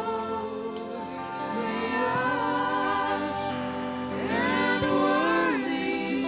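Gospel worship music: voices singing a slow, gliding melody over steady sustained keyboard chords.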